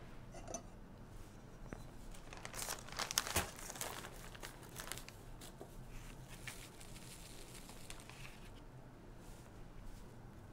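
Plastic zip-top bag crinkling as it is handled, in scattered rustling bursts that are loudest about three seconds in and fainter toward the end.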